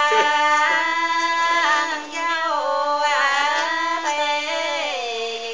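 Female voice singing a Vietnamese highland ethnic-minority folk song, holding long notes that slide slowly between pitches.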